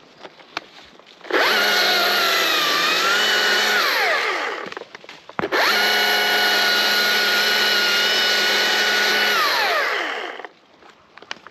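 Battery-powered chainsaw triggered twice, running at high speed for about three and then four seconds. Its motor whine dips under load partway through the first run, and each run winds down gradually after the trigger is released.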